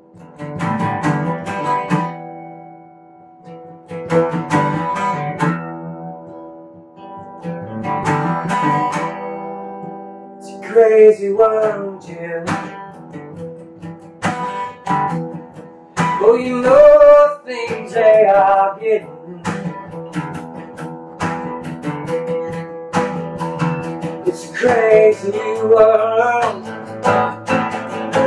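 Acoustic guitar strummed in slow chords spaced a few seconds apart, with a man's voice singing over it from about eleven seconds in.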